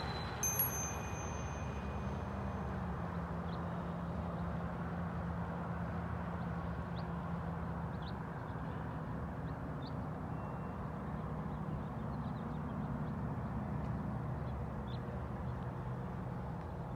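Distant road traffic: a steady low rumble with a vehicle engine's hum that slowly shifts in pitch. There is a brief high-pitched sound about half a second in and a few faint high chirps.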